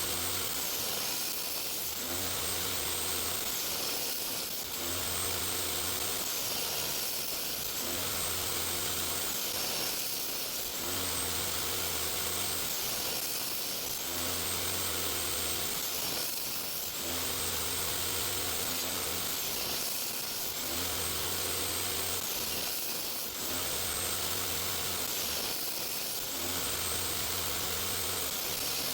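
Woodworking power tool running steadily. Its sound swells and eases in a regular cycle about every two seconds, as if the work is fed or moved back and forth through the machine.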